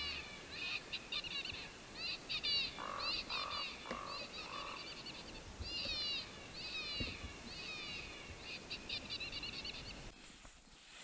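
Coyote group yip-howl played through an electronic predator call: many quick overlapping yips and short howls sweeping up and down in pitch. It cuts off abruptly near the end.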